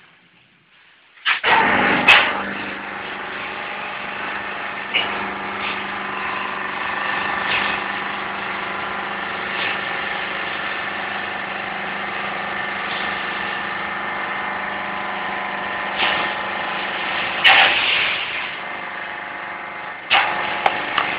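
Paper baling press machine's motor switching on about a second in and running steadily with a constant hum, as the press compresses the loaded waste paper; a few brief louder clatters break through now and then.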